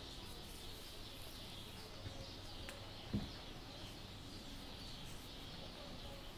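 Quiet room ambience with a faint, steady high-pitched hiss, broken once about three seconds in by a brief low thump.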